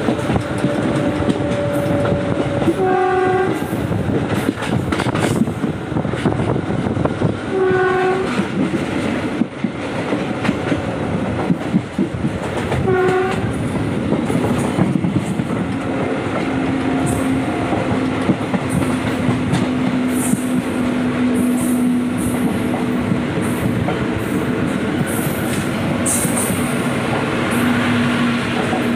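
Passenger train running along the track, heard from on board: a steady rumble with wheels clicking over the rail joints. Three short horn blasts sound about five seconds apart in the first half.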